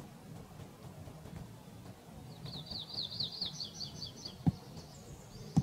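A small songbird singing one trill of rapid, high, down-slurred notes, about two seconds long, starting about two seconds in. Two short low thumps near the end are the loudest sounds.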